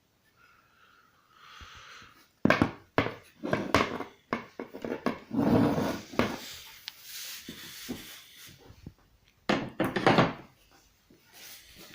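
Handling noise from a plastic and aluminium fan: several sharp knocks and clicks with stretches of rubbing as it is turned over and touched.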